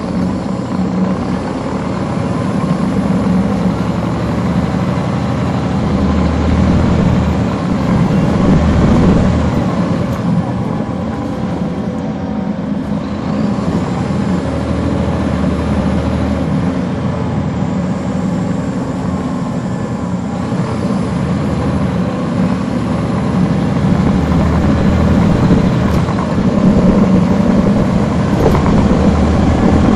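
Caterpillar C13 ACERT diesel engine of a 2009 NABI 40-SFW transit bus, heard from the rear seats while the bus is under way. The engine's loudness swells and eases and is highest near the end.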